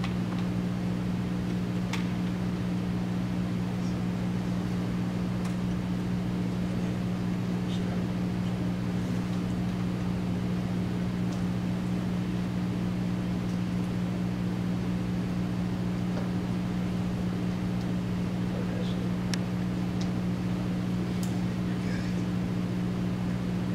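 Steady low machine hum made of a few fixed low pitches, unchanging throughout, with a few faint clicks scattered through it.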